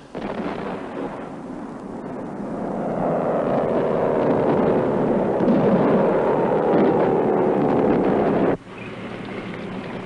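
Aircraft engines droning over a dense rumble that swells for several seconds, the engine pitch sinking slowly; it cuts off abruptly about eight and a half seconds in, giving way to a lower, steady rumble of a tank's engine and tracks.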